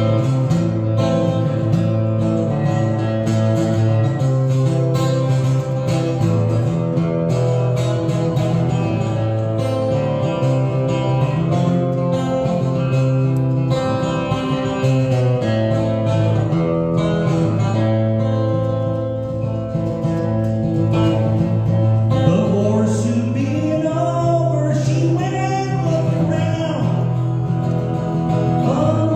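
Acoustic guitar strummed steadily in an instrumental passage of a folk song, with deep bass notes that change every second or two. A singing voice comes in over the guitar about three quarters of the way through.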